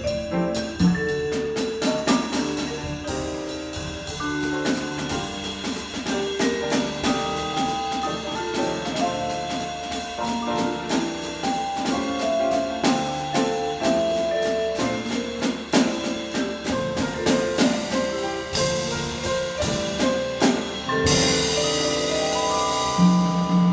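Jazz trio of piano, vibraphone and drum kit playing a melodic tune over steady ride-cymbal time. Near the end a cymbal crash comes in and a chord is held, ringing on.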